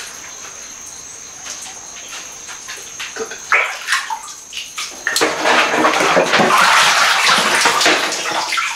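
Bath water sloshing as a person moves her arms through a full tub, stirring in a fizzing bath additive. About five seconds in it turns into loud, continuous splashing that lasts to the end.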